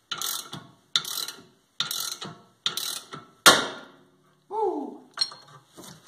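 Ratchet clicking in strokes about a second apart as it turns the screw of a ball joint separator pressing a tie rod end's tapered stud out of the steering knuckle. About three and a half seconds in comes a single loud crack as the stud pops free, followed by a short falling squeal and a few light clicks.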